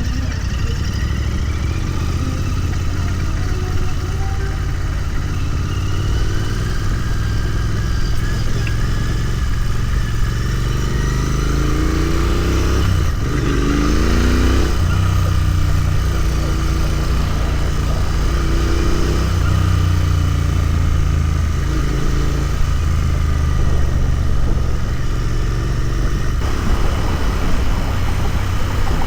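Royal Enfield Continental GT 650's 648 cc parallel-twin engine running on the move. Around the middle the revs climb in several short rising steps, as it accelerates through the gears.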